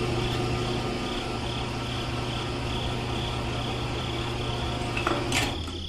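Small electric motor of a miniature concrete mixer running, a steady buzzing hum with a faint regular pulsing as the drum turns. It stops just before the end.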